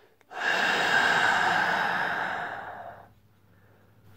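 A person snoring: one long, noisy breath of nearly three seconds that begins just after the start and fades toward its end.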